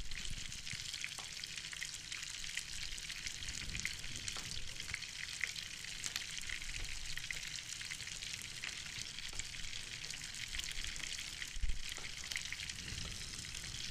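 Pots cooking on a stovetop: a steady sizzling hiss with small crackles, while a wooden spoon stirs yogurt in a saucepan.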